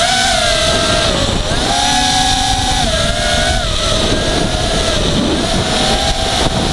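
Brushless motors and propellers of a Blade Conspiracy 220 quadcopter, heard from its onboard camera in flight: a loud steady whine whose pitch steps up and down as the throttle changes, over a rushing noise.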